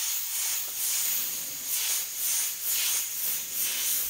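Airbrush hissing as it sprays paint, swelling and easing in short spurts about twice a second as the trigger is worked stroke by stroke.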